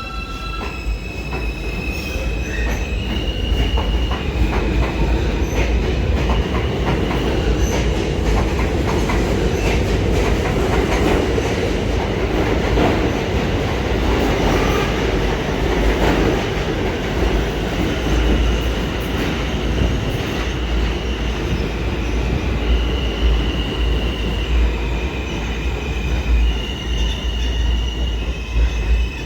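New York City subway train running along the track: a steady rumble of wheels on rail with wheel squeal, and high steady motor tones that step up and down in pitch several times.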